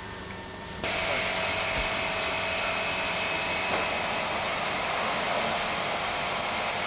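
A steady, loud hiss that switches on abruptly about a second in.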